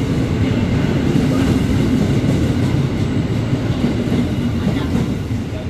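Electric commuter train (an ex-JR KRL multiple unit) rolling along the platform close by: a steady rumble of wheels and running gear.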